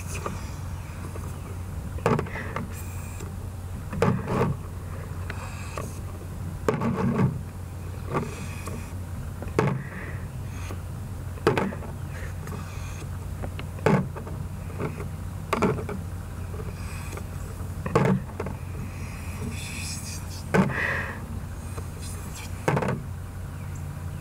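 A drinking straw sucking in air in short bursts, about every two seconds, as small round candies are lifted one by one and dropped with light clicks into a plastic container.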